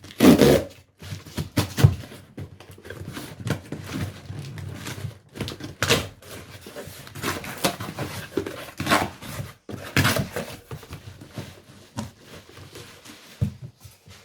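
Cardboard packaging being opened and handled: irregular rustling and scraping with several sharp knocks as the boxed camera is taken out.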